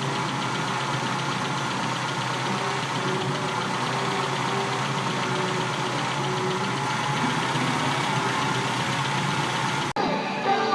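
Toyota 3A inline-four petrol engine idling steadily, freshly fitted with a new timing belt and tensioner. It cuts off suddenly about ten seconds in.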